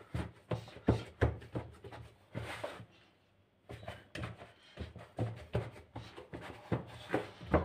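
Hands kneading soft yeast dough in a plastic bowl: irregular soft thumps and slaps of the dough pressed and folded against the bowl, with a short pause about three seconds in. The dough is nearly ready, starting to come together into a ball.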